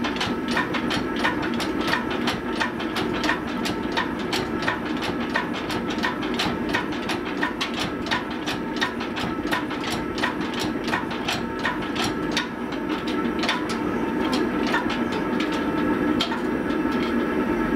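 Workshop machinery running steadily with a held hum and fast, even ticking, about three to four ticks a second, while a hand-pumped hydraulic shop press squeezes a hot steel bar.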